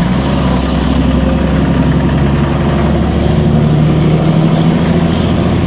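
Fire ladder truck's heavy diesel engine running with a steady low drone.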